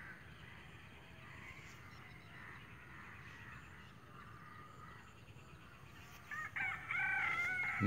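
A rooster crows once near the end, a held call of about a second after a few short notes, over faint bird calls.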